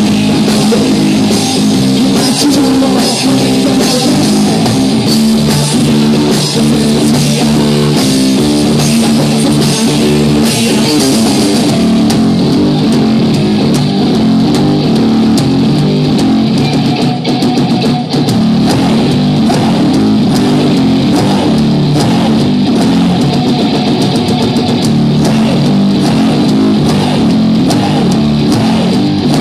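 Live rock music from a guitar-and-drums duo: electric guitar and drum kit playing together, loud and dense.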